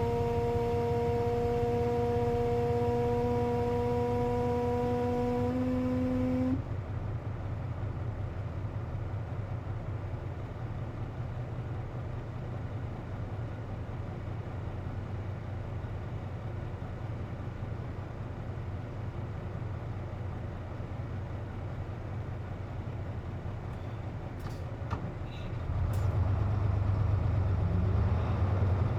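Inside a Hino KC-JP250NTN bus with its air conditioning on: a steady whine with several overtones over the diesel engine, creeping up in pitch and cutting off about six seconds in. This whine is the abnormal noise the owner links to the running air conditioner. The engine then runs quieter and lower, a few clicks come about three-quarters through, and near the end a louder low engine rumble returns.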